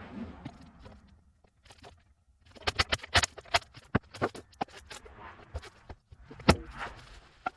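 Handling noise from a large steel rolling tool box being moved off a pickup truck: a run of sharp knocks and rattles with some scraping, and one louder bang near the end.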